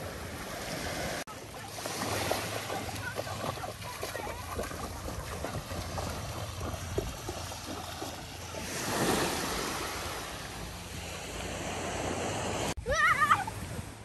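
Ocean surf washing in on a beach, with wind on the microphone and the sound cut sharply twice. A short, wavering high-pitched cry comes just before the end.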